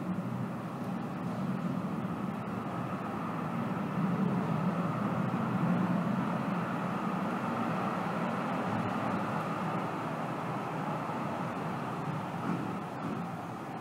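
Fløibanen funicular car coming down its track into the station, a steady rumble of the car on its rails that swells a little partway through and eases as the car nears the platform.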